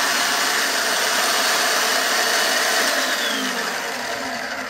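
General Electric D2FP1 food processor's motor running steadily at speed, then starting to wind down, falling slightly in pitch, about three and a half seconds in. It shows the processor working again now that its push-button switches, cleared of dried oil, make good contact.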